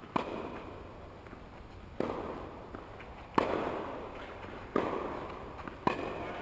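Tennis balls being struck and bouncing: five sharp pops at uneven intervals, the loudest about three and a half seconds in, each ringing on in the echo of a large indoor tennis hall.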